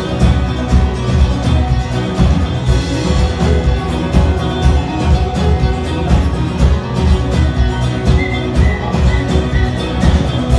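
Live rock band playing loudly through a PA, electric guitars over a heavy bass and a steady beat.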